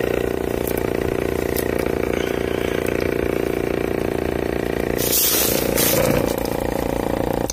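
Small portable tire inflator's piston compressor running steadily while pumping up a riding mower's tire, with a brief rush of noise about five seconds in. The compressor stops suddenly at the very end.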